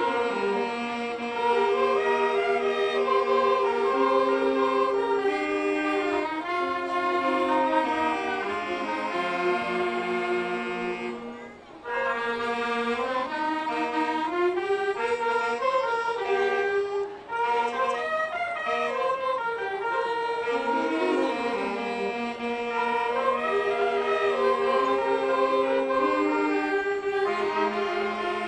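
School saxophone ensemble of alto and tenor saxophones playing a tune in harmony, with sustained notes and the melody moving over held chords. The music thins out briefly about 11 seconds in and again around 17 seconds, between phrases.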